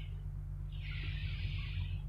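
Slow scraping or rubbing strokes, each about a second long and spaced about a second and a half apart, over a steady low hum.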